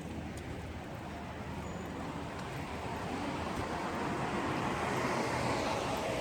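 Steady rushing rumble of vehicle noise, growing gradually louder over the second half.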